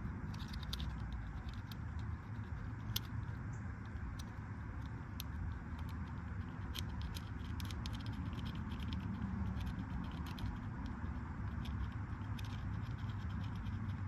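A thin metal pick scratching at the copper contacts of a car's switch, a scatter of light, irregular ticks and scrapes over a steady low background rumble. The contacts carry a blackened spot from poor contact, and the scraping cleans it off.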